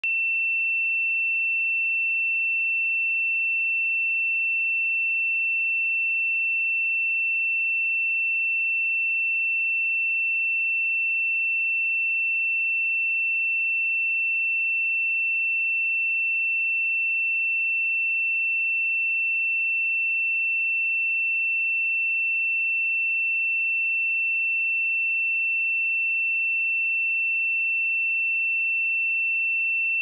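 A pure 2688 Hz sine-wave test tone, one steady high-pitched pitch held without change.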